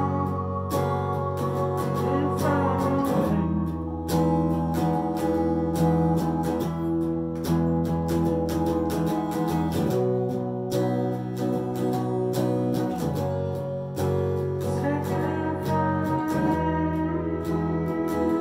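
Electric guitar and keyboard playing together, with held chords that change every few seconds.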